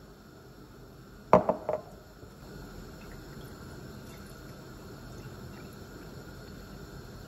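A glass tumbler set down on a countertop with three quick knocks. A couple of seconds in, orange juice starts pouring into it in a steady stream.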